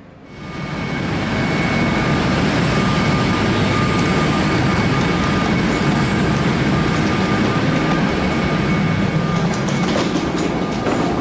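Loud, steady airfield noise: a deep drone with a constant high whine, typical of jet turbine engines or auxiliary power units running on the apron. A few light knocks near the end.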